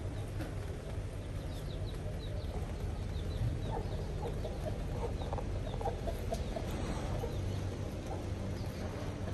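Chickens clucking in a run of short calls a few seconds in, with faint high chirps scattered through, over a steady low rumble.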